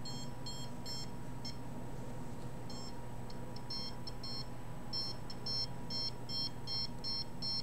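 Handheld EMF meter beeping in short, high-pitched tones as it picks up a signal. The beeps come irregularly at first, then settle into a steady rhythm of about two to three a second from around five seconds in.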